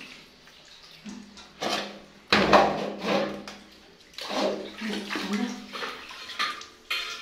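Water splashing in a plastic tub as a small monkey climbs in and out, in several separate bursts, the loudest about two seconds in with a dull thud.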